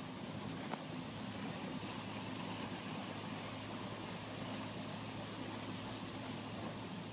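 Water washing along the hull of a sailing kayak trimaran moving slowly, a steady rush with a low steady hum under it and a single click under a second in.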